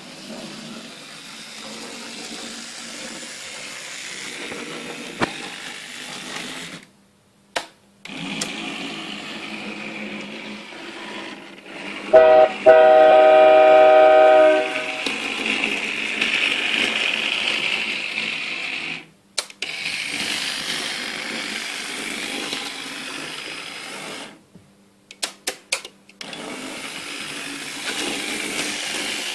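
Small electric motor of an analog model train whirring steadily as it runs along the track, cutting out almost to silence three times. About twelve seconds in, a computer-generated train horn sounds for about two seconds, played through a loudspeaker, and a few sharp clicks come near the end.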